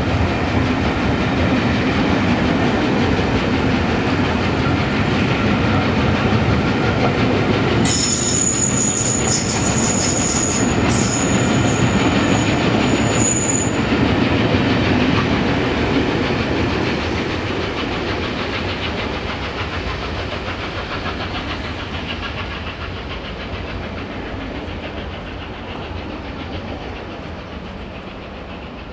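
Steam-hauled train of passenger coaches rolling slowly past and away, its sound fading gradually over the second half. A thin, high-pitched squeal runs for about six seconds in the middle.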